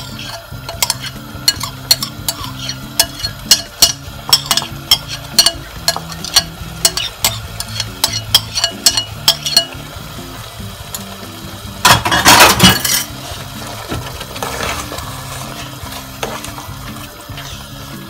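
A metal spoon clicks and clinks repeatedly against the plate and the pot as crumbled hard-boiled egg is scraped into a thick squash purée, two or three clicks a second for about ten seconds. About 12 seconds in comes a louder scraping stir of the thick mixture in the aluminium pot.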